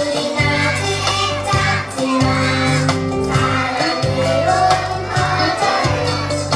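Song with a steady, sustained bass line, with a group of young children singing along as a choir.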